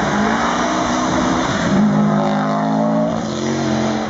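Subaru rally car's flat-four engine accelerating hard past on a gravel stage. The engine note climbs, drops at a gear change about two seconds in, then holds high again.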